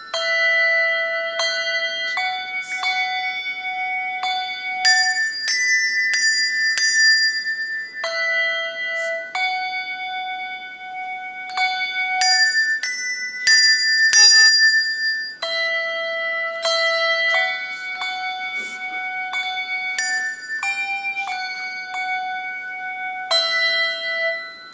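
Handbell choir ringing a tune: chords of handbells struck every half second to a second, each ringing on under the next, all in a bright high register with no low bells.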